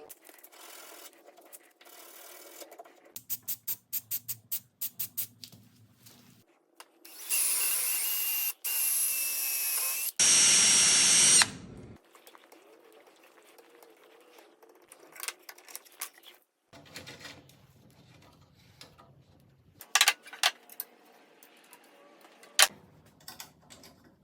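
Power drill running in three stretches of a second or two each near the middle, the last one higher and louder. Before and after come quick runs of sharp clicks and scattered knocks from tools and wood being handled.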